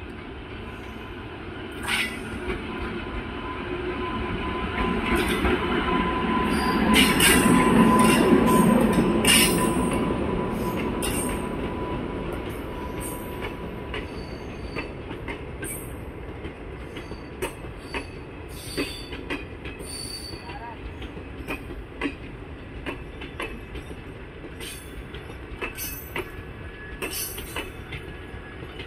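Electric-hauled passenger train rolling slowly past: the locomotive's rumble swells to its loudest about seven to ten seconds in and then fades as the coaches go by, with a steady high whine in the first half and scattered sharp clicks and squeals from wheels and brakes as the train slows to a halt.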